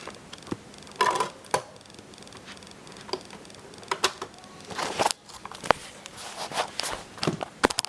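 A DVD case and its plastic wrap being handled and opened: crinkling and sharp plastic clicks and snaps, several spread irregularly.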